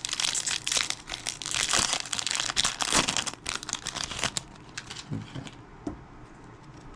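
Trading card pack wrapper crinkling as it is torn open. The crackling stops after about four and a half seconds, leaving a few faint clicks.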